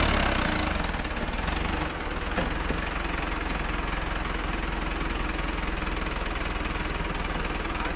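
Mahindra Arjun 605 tractor's diesel engine running steadily while it tows two heavily loaded sugarcane trailers past; it is loudest at the very start as the tractor goes by, then holds an even low rumble.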